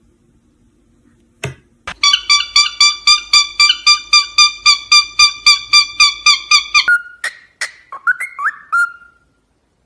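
A parrot whistling: a fast, even run of repeated whistled notes, about five a second, that stops abruptly after about five seconds, followed by a few short rising whistles. A single click comes just before the whistling starts.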